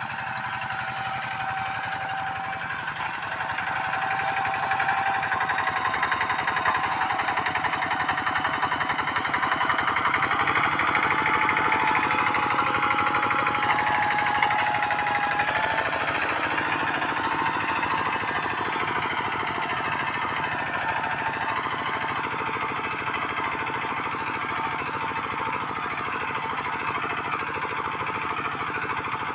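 Two-wheel walking tractor's single-cylinder diesel engine running steadily under load while tilling soil, with a rapid chugging beat. A thin steady whine rides over it for the first half.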